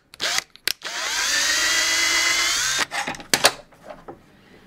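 Power drill boring out holes in an aluminium plate: a few short bursts, then a steadier run of about two seconds that stops near the three-second mark. A few sharp clicks follow near the end.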